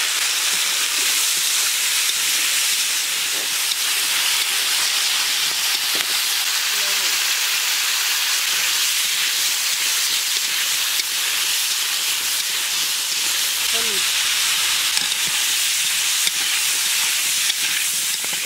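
Raw mango pieces frying in hot oil in a wok: a steady, loud sizzle.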